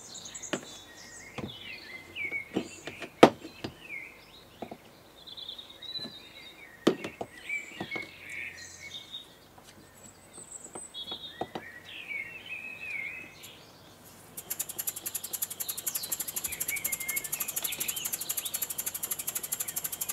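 Birds chirp in the background while metal knocks sound as the model engine is handled and set down on its metal spacer blocks; the sharpest knock comes about three seconds in. About fourteen seconds in, the air-driven Wig-Wag triple inline model steam engine starts running, with a fast, even mechanical ticking that keeps on.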